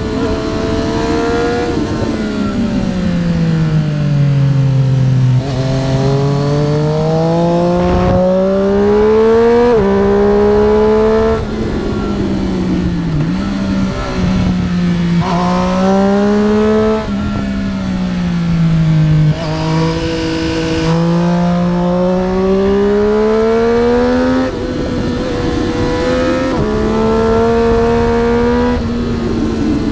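Triumph Street Triple RS three-cylinder engine riding hard, its pitch sweeping up and down as it accelerates and slows, with sudden jumps in pitch at gear changes every few seconds. Wind rush runs under the engine.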